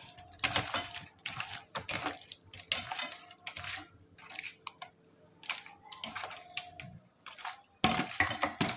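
Hand squishing and turning chicken pieces in a thick wet green marinade paste in a steel bowl: irregular wet squelches and smacks, with a quieter lull about halfway through.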